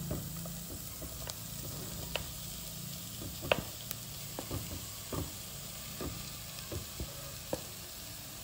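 Onion and spice masala sizzling softly in a nonstick pan as mashed boiled tapioca is spooned in, with scattered sharp clicks and knocks of the spoon against the pan.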